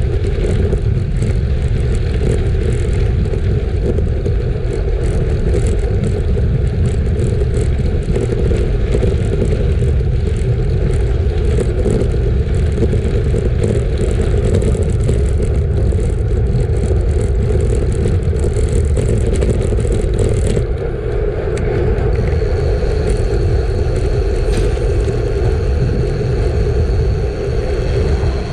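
Road bike rolling over gravel on 32c Continental GP5000 tubeless tyres: a steady rumble of tyres crunching and rattling on loose surface, mixed with heavy wind buffeting on the microphone. About two-thirds of the way in the hiss eases a little and a faint steady high whine comes in.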